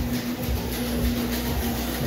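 Low, wavering rumble of a handheld phone microphone being carried at walking pace, over a steady low hum.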